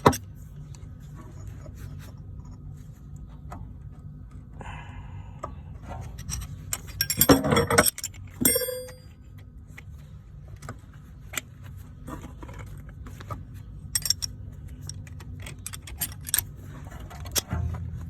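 Metal hand tools clicking and clinking against a van's rear brake caliper while the piston is wound back in with a piston wind-back tool. There is a louder burst of metallic clatter about seven seconds in, followed by one clank that rings briefly, all over a steady low hum.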